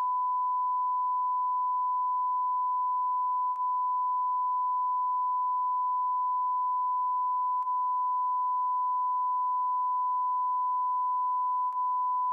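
Steady 1 kHz test-tone beep, the reference tone that goes with TV colour bars, one unbroken pitch with a tiny click and dip about every four seconds.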